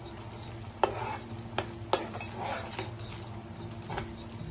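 A spoon stirring thick cooked cracked wheat and jaggery in a pan, scraping through the mixture and knocking sharply against the pan several times, about a second in, twice near two seconds and again near the end. A low steady hum runs underneath.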